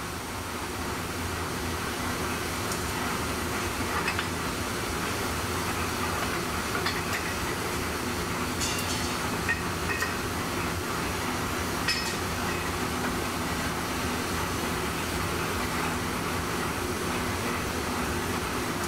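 Steady hum and noise of forge-shop machinery, with a few light metallic clinks scattered through the middle.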